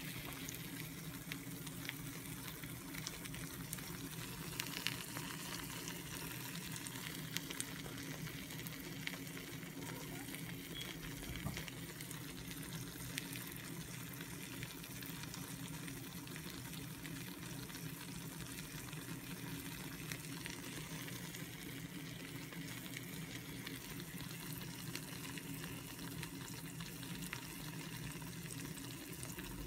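Scrambled eggs with tomato and shredded cheddar sizzling steadily in a frying pan, with scattered small crackles and pops.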